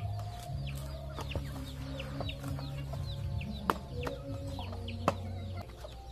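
Chickens clucking, with many short high peeps sliding down in pitch, and an axe striking a wooden log twice, sharply, about four and five seconds in. A low steady hum runs underneath.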